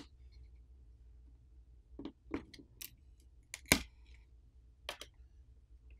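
A plastic pry pick clicking and scraping against a smartphone's internal parts as it lifts the earpiece speaker assembly out of the frame. A scattering of short, sharp clicks, the loudest nearly four seconds in.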